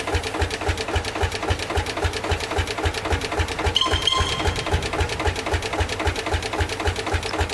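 K.L. Bulldog tractor's single-cylinder two-stroke hot-bulb engine idling: a slow, even pop-pop of about five beats a second.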